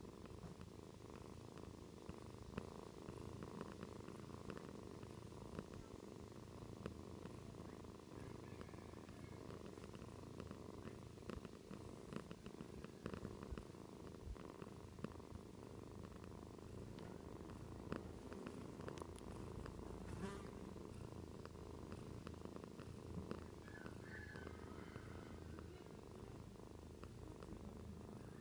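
Mother cat purring steadily while nursing her kittens, a low continuous rumble, with faint scattered clicks.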